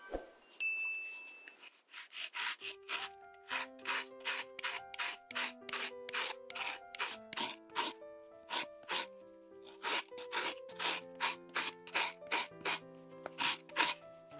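Lemon rind rubbed back and forth on a fine grater, zesting in quick, even scraping strokes of about three a second, over soft background music.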